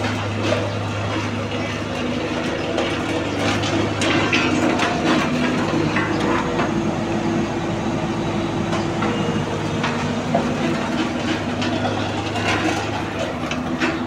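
HAMM tandem road roller's diesel engine running steadily as the roller drives slowly over loose gravel. Scattered crunches and clicks come through the engine sound.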